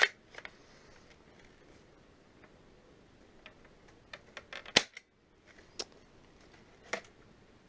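Type 97 bullpup spring-powered airsoft rifle being handled and fired: scattered light mechanical clicks, one sharp snap about five seconds in, and two more single clicks after it.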